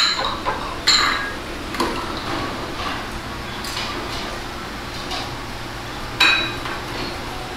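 Tableware clinking several times, sharp ringing knocks of dishes and bowls, with the loudest about six seconds in, over a steady low hum of restaurant ambience.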